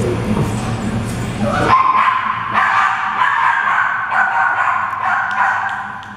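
Dogs whining and yipping while play-wrestling: a high, wavering whine that starts about two seconds in and runs on until the level drops near the end. Before it there is a low steady drone.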